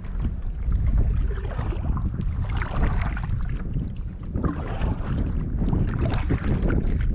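Kayak being paddled across open water, with splashing and water slapping the hull every second or two under heavy wind rumble on the microphone.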